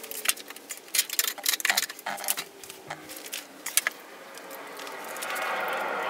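Metal hand tools clinking and jangling as they are picked up and handled. From about five seconds in, a steady rasping ratchet wrench takes over as a loose fuel line fitting on the Td5 diesel cylinder head is tightened.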